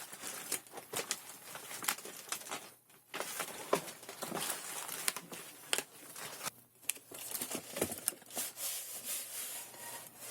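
Packaging being handled and opened: crinkling and tearing of paper or plastic wrapping, with scattered sharp taps and clicks and two brief pauses.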